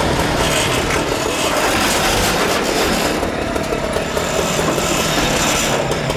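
An engine running steadily, a loud, even drone with no changes in pace.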